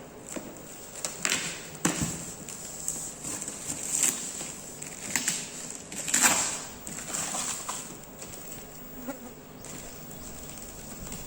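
Irregular rustling with scattered light clicks and taps, the handling noise of packaging being opened and unwrapped.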